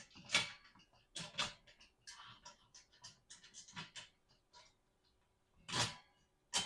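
Plant stand parts being handled and fitted together by hand: irregular clicks, scrapes and knocks, with louder knocks about half a second in, about a second and a half in, and near the end.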